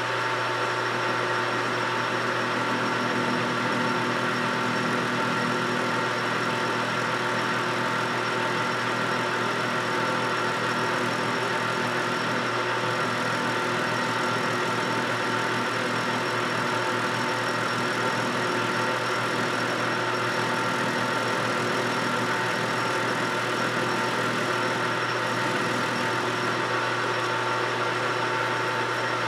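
Metal lathe running at a steady speed with its chuck spinning: an even motor and gear-drive hum made up of several constant tones.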